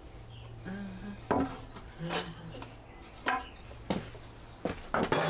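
Wooden boards knocking and clattering against each other as timber is sorted and lifted off a stack: about six separate knocks.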